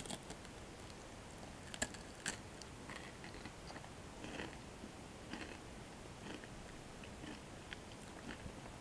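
Close-miked mouth sounds of eating a chocolate Kit Kat: a few crisp snaps of the wafer being bitten, the sharpest about two seconds in, then softer scattered clicks and chewing.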